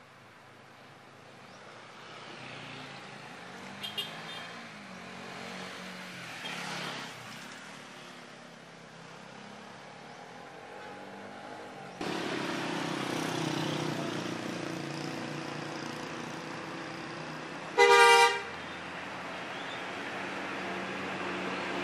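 Tour bus diesel engine running as the bus creeps along a narrow road, getting louder as it comes close. A faint short horn toot sounds about 4 s in, and a loud vehicle horn blast of about half a second sounds near the end.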